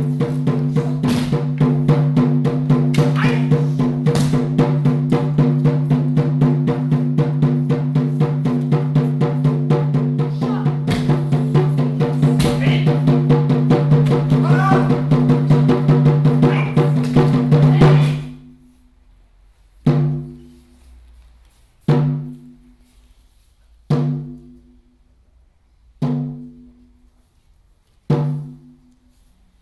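A large drum played in a fast continuous roll, its deep tone ringing steadily under scattered sharper hits. About two-thirds of the way through the roll stops, and single drum strokes follow about every two seconds, each ringing out and fading.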